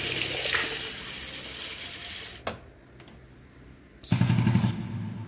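Water running from an old metal bathroom tap, a steady hiss that cuts off abruptly about two and a half seconds in. About four seconds in comes a brief, loud, low buzzing rattle with rapid pulses, which then fades.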